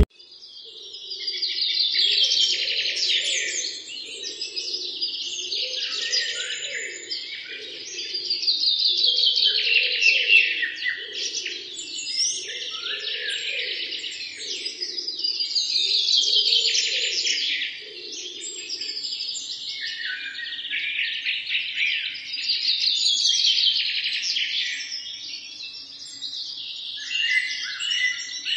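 A chorus of many small birds chirping and twittering together, swelling and fading about every seven seconds.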